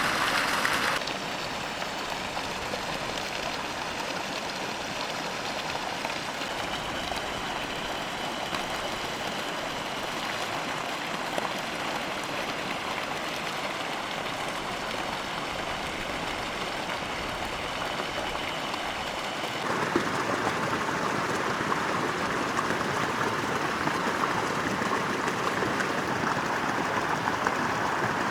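Steady rushing water noise, with the tone and level changing abruptly about a second in and again about two-thirds of the way through.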